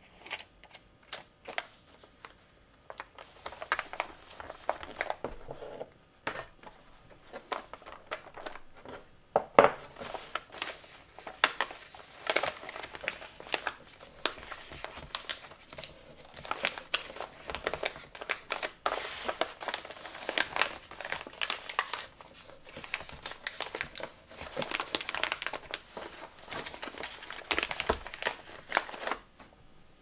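Kraft paper crinkling and rustling as it is folded by hand around a parcel. The crackling comes in bursts, with the sharpest crackle a little under ten seconds in.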